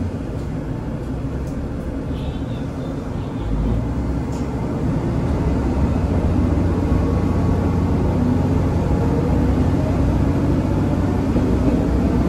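Diesel railcar's engine and running gear as the train pulls away from a station: a low rumble that grows louder a few seconds in as the railcar gathers speed, then runs on steadily.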